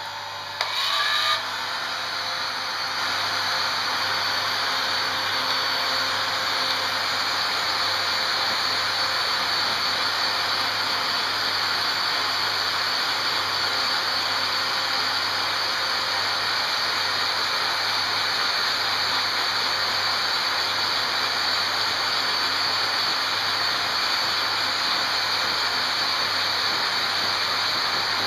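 A 1500-watt heat gun is switched up with a couple of clicks about a second in, then blows steadily at full power, a constant rush of air with a faint high whine. It is heating a motherboard chip to reflow its solder.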